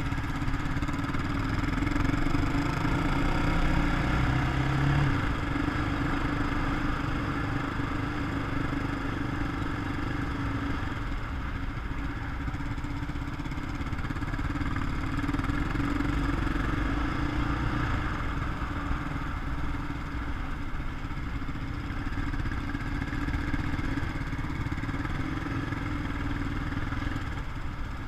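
Quad bike engine running at a steady road speed, its revs briefly rising about three to five seconds in, with wind rumble on the microphone.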